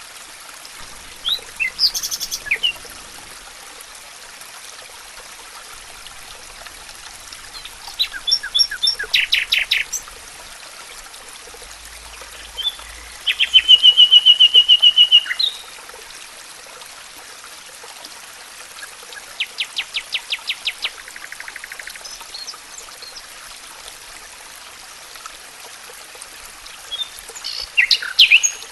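Songbirds singing in about five short phrases, the loudest a fast, even trill about halfway through, over the steady rush of running water.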